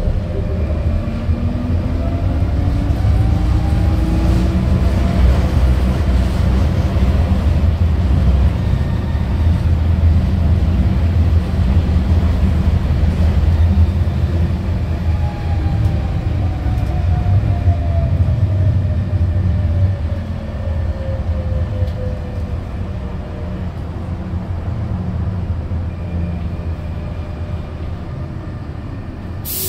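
M31 tram running, heard from inside the car: a steady low rumble of the wheels and running gear. A motor whine rises in pitch over the first few seconds as it speeds up, and falls slowly from about halfway as it slows. It ends with a brief burst of hiss.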